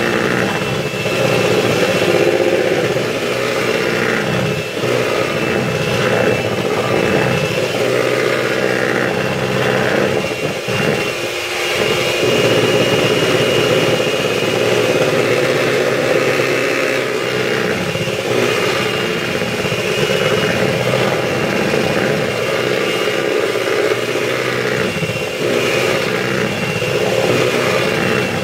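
Electric hand mixer running steadily, its beaters whisking butter and icing sugar into buttercream while the mixture is still crumbly, like fine breadcrumbs.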